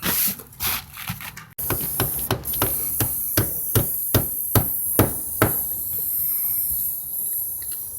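A hammer striking in a steady rhythm, about two or three blows a second for roughly four seconds, then stopping: nailing in a patch over damaged roof boards.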